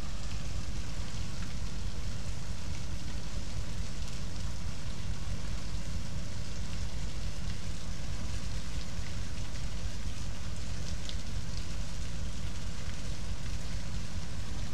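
Steady rushing noise with a deep rumble underneath, typical of wind on the microphone by open water.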